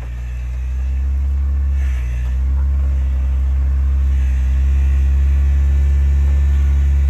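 Jeep engine running at low revs with a deep, steady rumble as the four-wheel drive creeps forward over an off-road obstacle. It grows a little louder over the first second, dips briefly about two seconds in, then holds steady.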